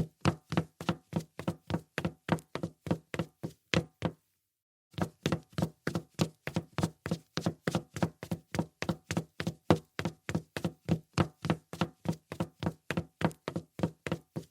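High heels clicking on a solid wood floor in an even walking rhythm, about four sharp strikes a second. The steps stop for about a second some four seconds in, then carry on.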